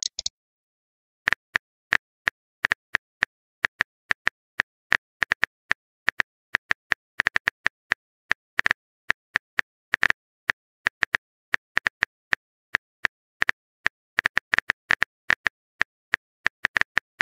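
Simulated phone-keyboard typing clicks: short, sharp taps in irregular runs of several a second, with brief pauses, as the next chat message is typed out. A short message pop ends right at the start.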